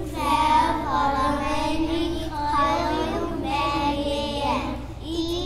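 Children singing a song, with held, gliding notes, over a steady low hum.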